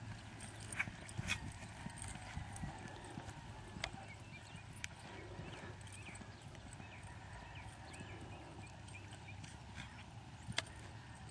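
A mare's hoofbeats at a lope on loose arena dirt, with scattered sharp clicks over a low steady background hum and a few faint chirps.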